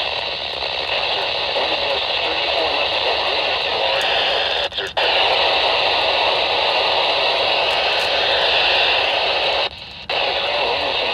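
NOAA Weather Radio receiver giving out a steady hiss of static, cutting out briefly twice, a little before halfway and near the end.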